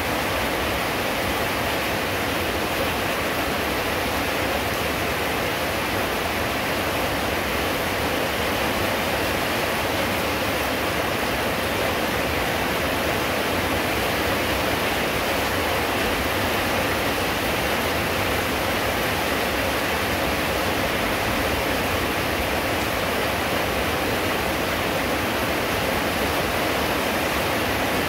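Rain falling steadily: a constant, even hiss.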